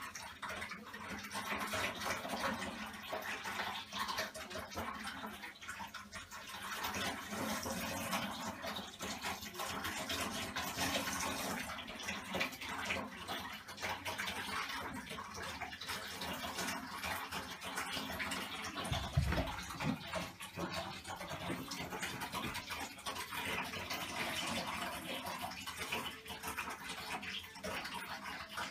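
Hot water running from the tap into a bathtub under its closed lid: a steady rushing and splashing as the tub fills. A short low bump sounds about two-thirds of the way through.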